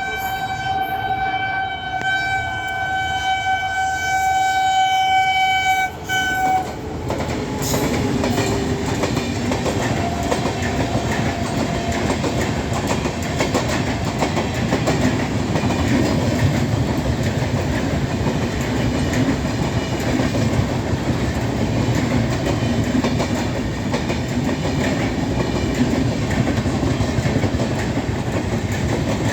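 WAP7 electric locomotive's horn sounding one long blast that stops about seven seconds in, with a brief dip near six seconds. The express then runs through at speed without stopping, its coaches passing in a steady rumble of wheels on rails.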